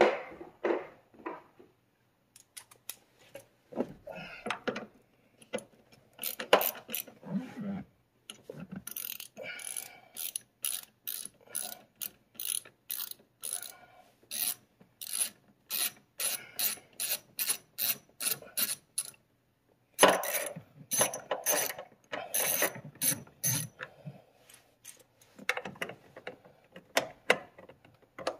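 Socket ratchet clicking in long quick runs while backing out small 7 mm door-panel screws, with scattered handling knocks and rattles between the runs.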